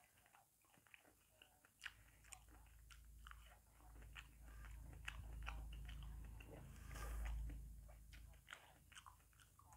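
Faint mouth sounds of a man chewing ripe jackfruit flesh: soft wet clicks and smacks. A low rumble swells from about two seconds in and fades after eight seconds.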